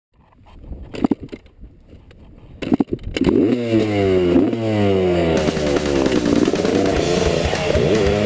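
A few sharp knocks, then a dirt bike engine revving loudly, its pitch sliding down and back up several times.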